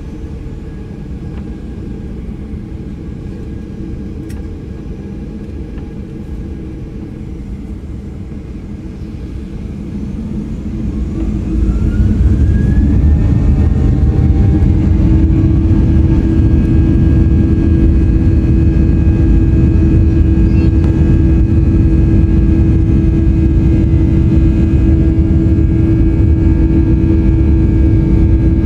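A Boeing 737-800's CFM56-7B turbofan engines heard from inside the cabin spooling up to take-off thrust. A steady idle hum gives way, about ten seconds in, to a rising whine as the engines wind up, and the sound grows much louder. It then holds as a loud steady drone with a constant humming tone during the take-off roll.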